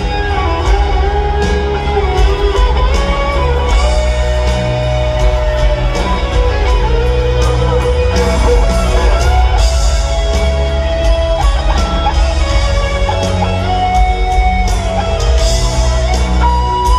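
Live rock band in an arena: an electric lead guitar plays a solo of long held notes that bend and slide between pitches, climbing higher near the end, over piano, drums and bass.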